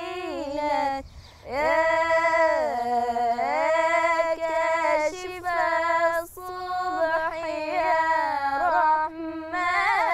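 A young girl singing an Islamic religious chant (inshad) unaccompanied, in long held notes that bend and turn in ornate melismas, with a short breath about a second in.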